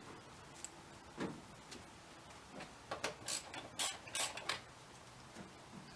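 Ratchet and socket working a 10 mm bolt loose on a car's interior door panel: a few uneven clicks and short rattles, bunched together between about three and four and a half seconds in.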